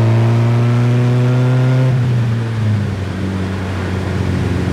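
Engine of a DF Goblin kit car, a supercharged Cobalt SS four-cylinder, pulling under gentle acceleration. Its pitch climbs steadily for about two seconds, then drops back to a lower, steadier note, with wind rushing past the open cockpit.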